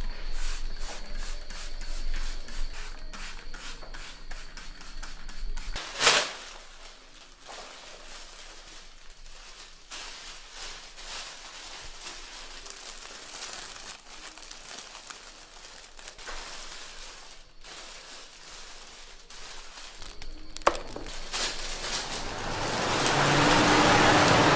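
Rubbing, wiping and clicking noises from handling an electric fan's plastic parts during cleaning, with a sharp click about six seconds in. Near the end a steady rushing noise with a low hum swells up, like the fan being switched on.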